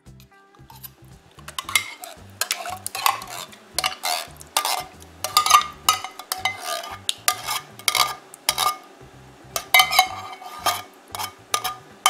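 A metal spoon scraping and clinking against a tin can and a mixing bowl as thick condensed cream of celery soup is spooned out and stirred. The clinks and scrapes come irregularly, several a second, starting about a second and a half in.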